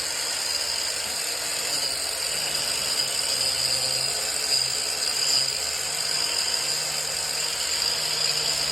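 A power tool running steadily, giving a high whine over an even hiss.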